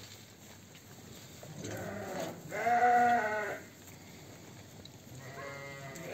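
Sheep bleating in a flock of ewes. A short call about two seconds in runs into a loud, long bleat, and a quieter, quavering bleat comes near the end.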